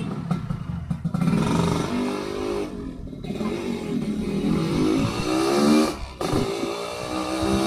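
Yamaha RX-King two-stroke single-cylinder motorcycle accelerating through the gears on an aftermarket underslung exhaust. The pitch climbs, drops briefly at a shift about three seconds in and again near six seconds, then climbs again. The owner says the exhaust makes an odd note, which he suspects comes from a wrongly set header pipe.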